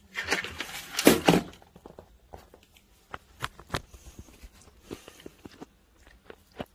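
Crab-eating macaque eating banana close to the microphone. A loud burst of rustling and handling comes in the first second and a half, then scattered small clicks, snaps and bites as it eats.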